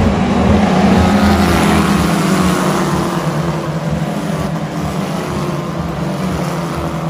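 Several Formula 1 cars' turbocharged V6 engines running past at speed, their engine notes overlapping and shifting in pitch as the cars go by, loudest about a second in and easing off afterwards.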